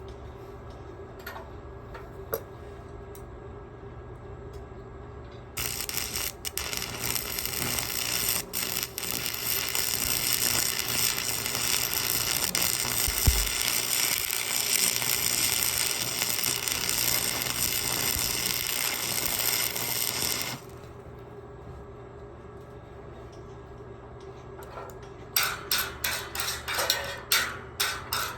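Electric arc welding: the arc strikes about five seconds in and crackles steadily for about fifteen seconds, then cuts off suddenly. Near the end comes a quick run of sharp metal taps, about three a second.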